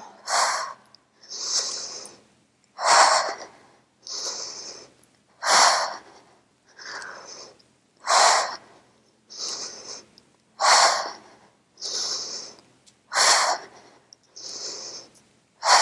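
A woman breathing hard during dumbbell rows. A loud, forceful exhale comes about every two and a half seconds, each followed by a quieter, hissier inhale, in time with her repetitions.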